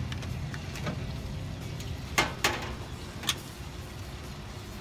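Three sharp clicks a little over two seconds in, as balls of dough are laid out on an open waffle iron, over a steady low hum.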